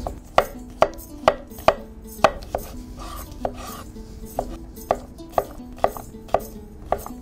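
Kitchen knife chopping cucumber on a wooden cutting board, a sharp knock about twice a second.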